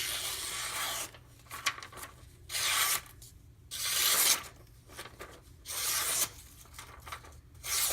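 Freshly sharpened Kershaw Crown knife edge slicing through paper, five separate cuts about a second and a half apart. This is a sharpness test of the edge straight off a 6000-grit water stone, before stropping.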